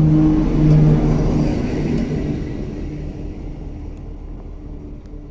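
SNCF BB 67400-series diesel locomotive passing close by, its engine running with a steady low drone. The sound is loudest as it goes by in the first second or two, then fades away as it recedes.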